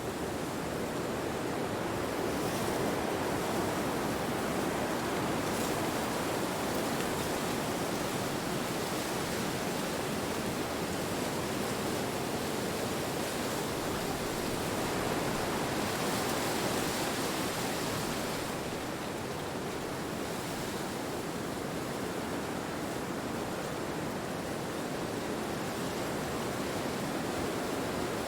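Steady rushing wind noise, slowly swelling and easing, with a brighter gust in the middle.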